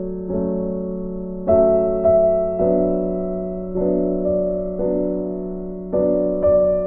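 Background piano music: slow chords, each struck and left to fade. It stops abruptly at the very end.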